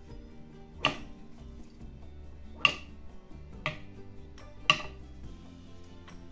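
Metal painting knife tapping against a canvas: four sharp clicks with a short metallic ring, about a second apart, over soft background music.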